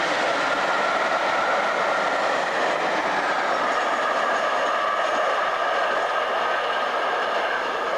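Freight train running past on mainline track: a steady, loud noise of wagon wheels rolling on the rails.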